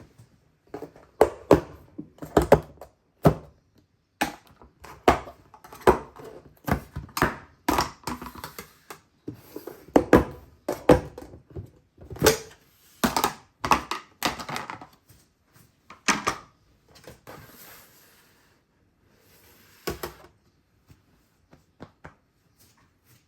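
Irregular knocks, taps and clatter of kitchen utensils and containers being handled, dense for most of the stretch and then thinning out to a single knock near the end.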